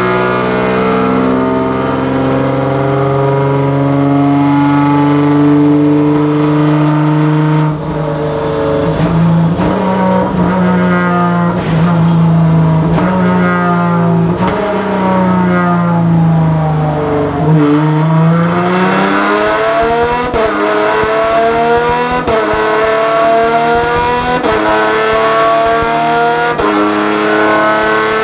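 Genesis Coupe GT1 race car's 3.8-litre V6 running on a chassis dyno through a sequential gearbox. The engine climbs slowly in pitch, holds, then falls away. It then revs up again in several quick climbs, each ended by a sudden drop in pitch as the gearbox upshifts.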